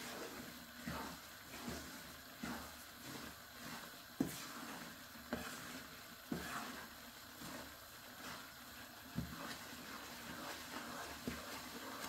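Wooden spoon stirring and scraping a ground lentil (dal) mixture roasting in ghee in a nonstick frying pan, with a faint sizzle and a few light, irregular knocks of the spoon against the pan. The mixture is being roasted until light and fluffy for panjiri.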